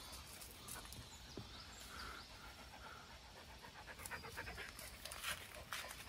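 A dog panting in quick, regular breaths, most distinct in the last two seconds.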